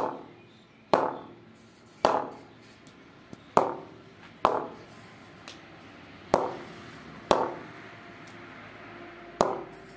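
Kashmir willow cricket bat being knocked for a sound check, about eight sharp knocks at uneven intervals, each ringing briefly in the wood. The ping is taken as a sign of the blade's quality.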